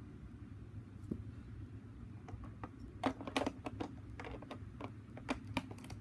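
Lego pieces being handled off camera: a quick, irregular run of light plastic clicks and taps starting about two seconds in, thickest around the middle, over a steady low hum.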